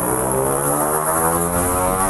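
An engine droning steadily at one pitch, coming in suddenly and holding loud.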